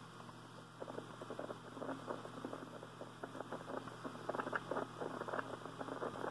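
Mooney M20C's engine at idle, a low steady hum, with irregular light clicks and rattles as the plane touches down and rolls along the runway.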